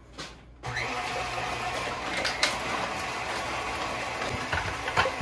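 Old electric citrus juicer switched on about a second in, its motor then running steadily with a few light clicks. The juicer is not yet juicing.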